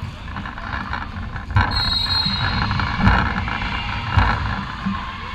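Sports-hall ambience during a volleyball match: a steady background din with dull thumps about a second and a half, three and four seconds in, and a brief high squeak around two seconds.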